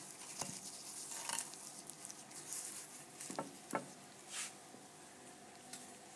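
Gloved hands handling a sandwich on a ceramic plate: crinkling rustles of thin plastic gloves and a few light knocks as the bread and plate are moved, two of them close together a little past the middle. A faint steady machine hum underneath.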